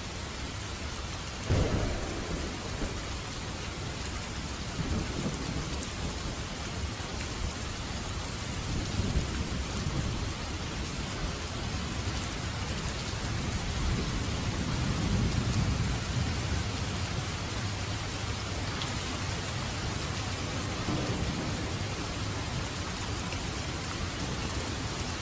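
Steady heavy rain with thunder: a sharp thunderclap about a second and a half in, then several low rolling rumbles.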